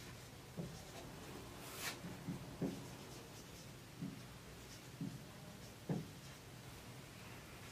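Marker pen writing on a whiteboard: faint, short strokes and squeaks, about seven of them scattered through.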